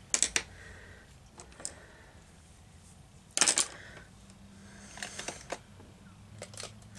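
A few short clicks and taps of makeup tools being handled as a brush is picked up, the loudest about three and a half seconds in.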